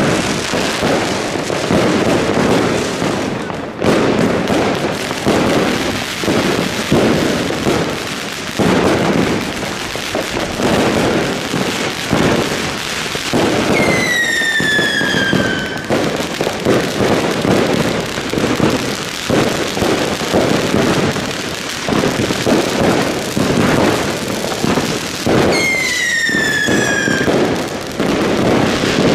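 Dense New Year's Eve fireworks all around: a continuous barrage of bangs and crackling firecrackers and rockets. Two falling whistles cut through it, one about halfway and one near the end.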